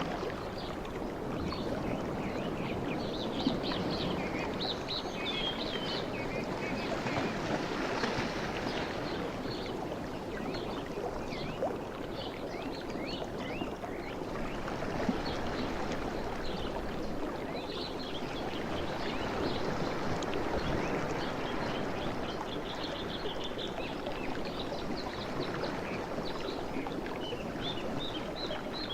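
Sea waves washing steadily, with small birds chirping in quick high runs near the start and again through the second half.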